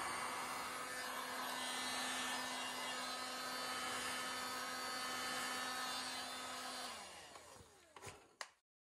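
A 12.5 A electric heat gun running steadily, its fan and heater hissing with a constant hum, as it shrinks heat-shrink tubing over a spliced extension cord. About seven seconds in it is switched off and the fan winds down in a falling whine, followed by a couple of knocks as it is set down.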